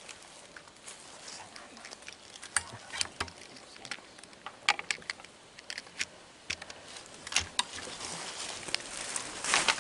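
Scattered, irregular sharp clicks and light crackles over a faint background hiss, with a denser crackle near the end.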